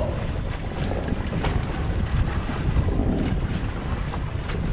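Wind rumbling on the microphone over the wash of sea waves around a small boat.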